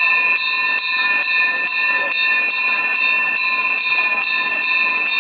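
A bell rung for Hindu aarti, struck over and over in an even rhythm of a little more than two strokes a second, its ringing tones carrying on between strokes.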